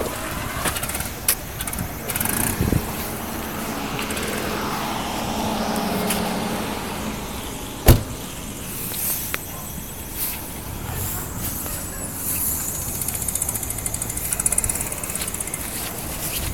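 Car engine passing on a street, the note swelling and fading over a few seconds, over steady traffic noise. A single sharp knock stands out about eight seconds in.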